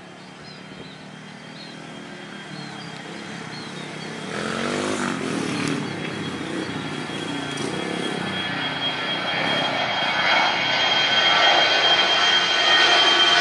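Airliner taking off, its engines at takeoff power growing steadily louder, with a steady high whine over the noise.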